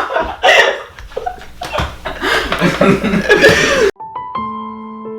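A person laughing and chuckling, cut off abruptly about four seconds in by a few soft, sustained piano notes that ring on and slowly fade.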